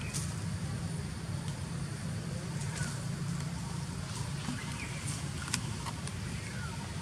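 A steady low engine-like hum runs under the window, with a few faint short falling chirps and a sharp click or two over it.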